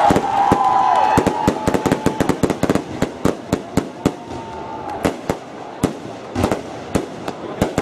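Aerial fireworks bursting into crackling, glittering stars: a rapid run of sharp pops and bangs, dense at first, then thinning to separate louder reports.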